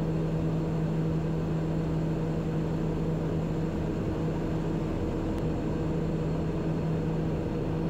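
Steady cabin drone of a Daher TBM 960 turboprop in the climb, heard inside the cockpit: an even rush of engine and airflow noise with a steady low propeller hum.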